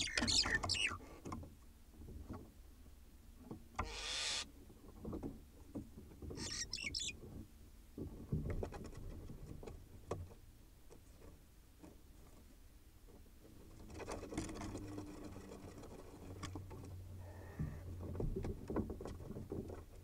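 Barn owls inside a wooden nest box, shuffling and scraping in the straw and knocking against the box walls. There are a few short raspy hissing calls, the clearest about four seconds in.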